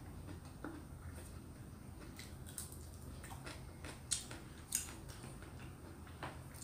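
A person eating with her fingers: quiet chewing and mouth smacks, with two sharp clicking smacks about four and five seconds in.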